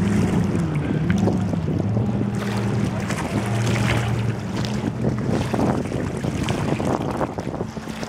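Rigid inflatable boat's engine running at speed as the boat passes, a steady drone whose pitch shifts slightly a few times. Wind rumbles on the microphone, over the rush of its wake and waves.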